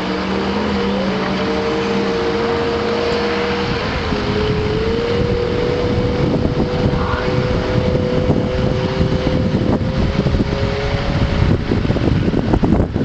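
Outboard motors of several bass boats running at speed as they pull away. The engine whine rises in pitch twice early on and then holds steady, with gusts of wind on the microphone growing in the second half.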